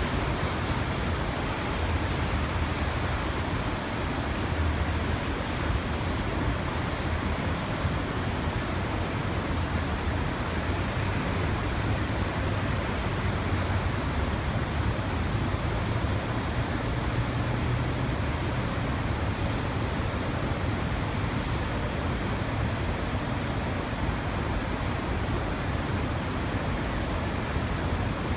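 Willamette Falls running high in flood: a steady, even rushing of water with no breaks or changes.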